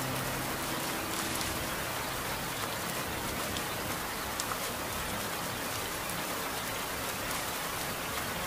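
Steady rain falling: an even hiss with scattered drop ticks. A few held notes of the song fade out within the first two seconds or so, leaving only the rain.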